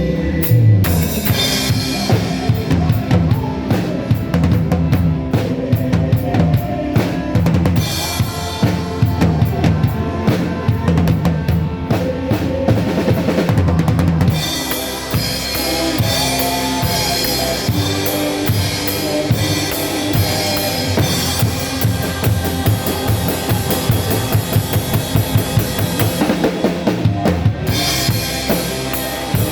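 Drum kit playing a steady beat under a church band's instrumental music, recorded on a phone. The drum pattern changes about halfway through.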